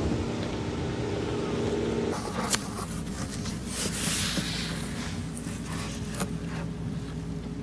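Car engine idling with a steady hum, which cuts off about two seconds in. It is followed by a few scattered clicks and knocks and a brief rush of hiss.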